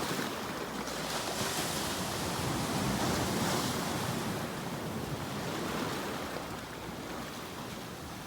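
Sea waves breaking, a surge swelling about a second in and slowly easing away over the last few seconds.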